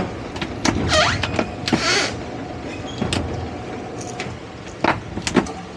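Twin outboard motors idling with a steady low hum while the boat works against a dock piling, with repeated knocks and clunks of hull, gear and deck fittings and a few short squeaks.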